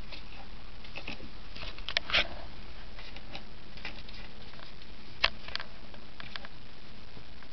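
Soft scuffling and light taps from a kitten and its mother cat playing, with a few sharper clicks about two seconds in and again past five seconds, over a steady hiss.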